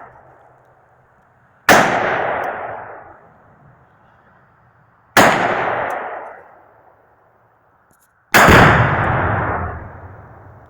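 Three one-pound tannerite targets detonating in turn, about two, five and eight seconds in. Each is a sharp boom with a rolling echo that dies away over about two seconds. The last is the loudest and deepest.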